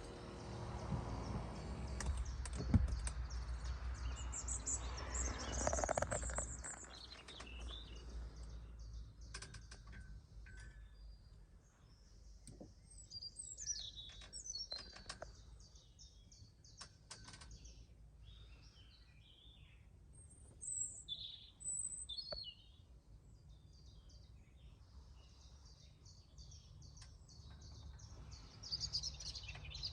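Small birds chirping in short, high calls, over a steady low hum. A louder rushing noise swells and fades in the first seven seconds, and scattered sharp clicks sound through the middle.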